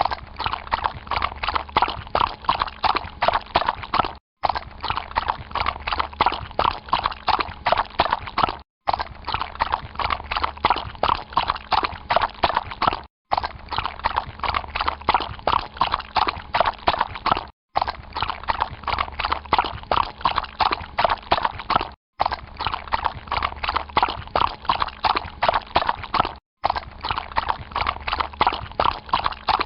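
Horse walking through water, its hooves striking and splashing in a steady walking rhythm. The same short stretch of about four and a half seconds repeats, with a brief dropout between repeats.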